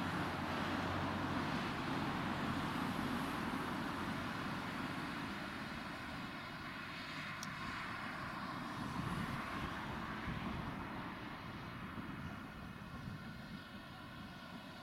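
Distant steady roar of LMS Black Five steam locomotive 45212 working its train at speed, with no separate exhaust beats to be picked out. It eases slightly in the second half.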